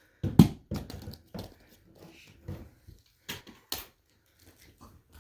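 Close handling noise: an irregular series of knocks and rustles, the loudest about half a second in and twice near the four-second mark.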